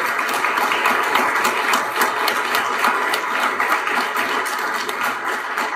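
A roomful of people applauding: a dense, steady clatter of many hands clapping.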